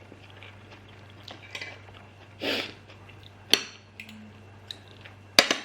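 Cutlery clinking against a plate: a short scrape about two and a half seconds in, a sharp clink a second later, and another pair of sharp clinks near the end.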